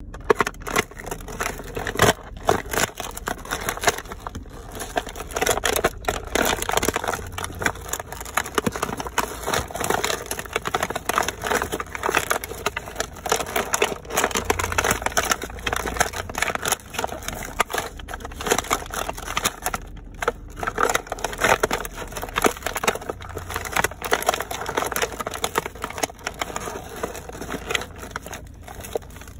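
Cardboard figure box and its plastic inner packaging being crushed and trampled underfoot by sneakers: a continuous, irregular run of crunching and crackling with many sharp cracks, pausing briefly about twenty seconds in.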